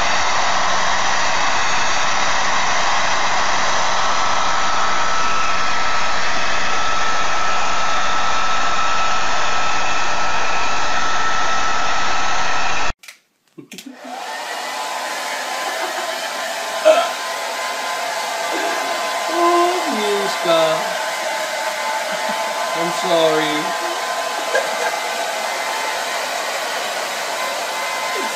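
Hand-held hair dryer blowing steadily with a faint whine. About thirteen seconds in it cuts out for a moment, then a hair dryer runs again with a few short pitched sounds over it in the middle.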